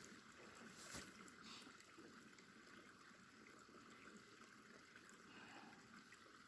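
Near silence: a faint steady hiss, with a couple of soft clicks about a second in.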